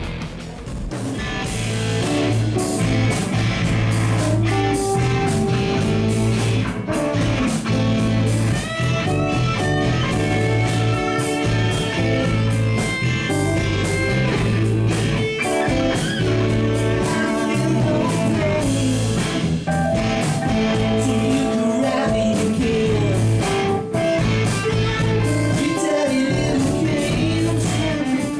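Live rock band playing loudly, with electric guitars over bass and drums.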